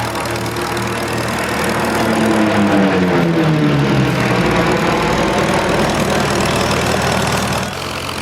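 Lockheed P-38 Lightning's twin Allison V-12 engines running loud; the engine note glides down in pitch between about two and four and a half seconds in as the sound swells, then the level drops off suddenly near the end.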